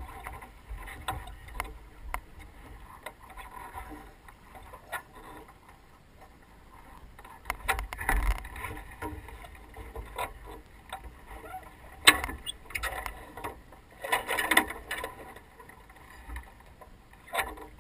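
Small racing sailboat under way: low rumble and rushing noise of wind and water, broken by scattered clicks and knocks from gear on deck, the sharpest a single loud click about twelve seconds in.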